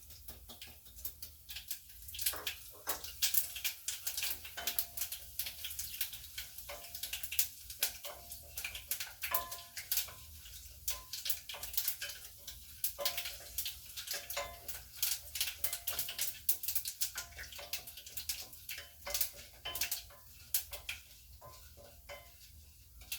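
Mustard seeds and urad dal crackling and popping in hot oil as they temper, a stream of sharp, irregular pops over a steady low hum.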